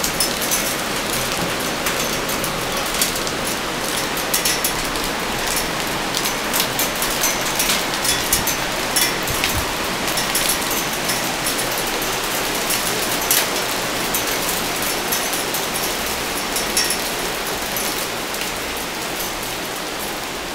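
Hailstorm: a dense, steady hiss of hail and rain coming down, peppered with many sharp ticks of hailstones striking hard surfaces, easing slightly near the end.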